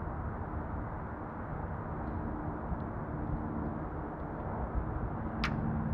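Outdoor background noise: light wind rumble with a faint, steady distant engine hum from traffic or aircraft, heard through a shotgun mic with its high-pass filter on. A single sharp click comes near the end.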